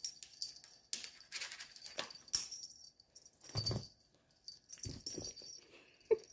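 Cat pouncing on and wrestling a fuzzy fabric wand toy on carpet: bursts of rustling and scratching, two heavier thuds in the middle, and a brief squeak near the end.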